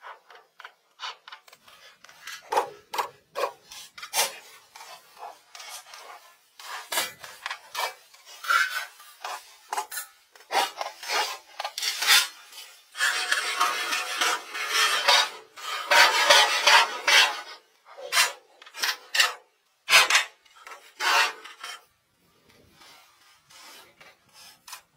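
Rasping, rubbing strokes of hand work on wood, like sandpaper worked back and forth over a board. The strokes come short and irregular, then run almost continuously for a few seconds in the middle before thinning out near the end.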